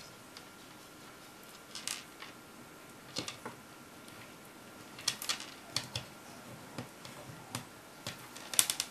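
Plastic pony beads clicking lightly against each other and against fingernails as they are handled and threaded onto string, in scattered small clicks, some in quick clusters.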